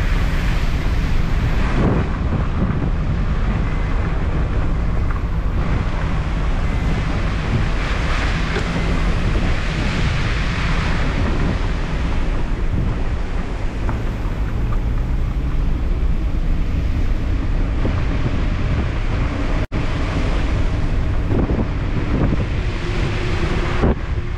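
Heavy wind noise on the microphone from a car moving through tropical-storm rain, with the car's engine and tyres on the wet road running underneath. The sound cuts out for an instant about twenty seconds in.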